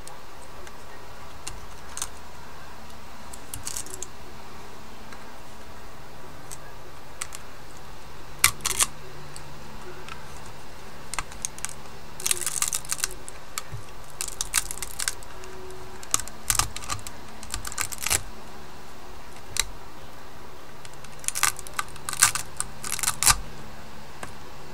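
White PolyMax PLA support material being snapped and picked off a 3D print by hand: irregular sharp plastic clicks and cracks, some single and some in quick crackly clusters, over a steady low hum.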